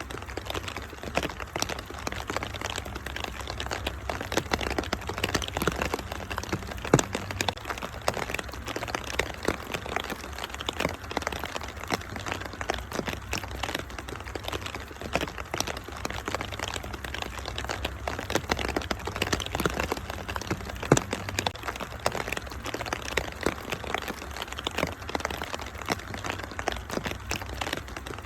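Wood fire crackling, a dense stream of small pops and snaps with louder cracks about 7 and 21 seconds in, over a steady patter of rain and a low rumble.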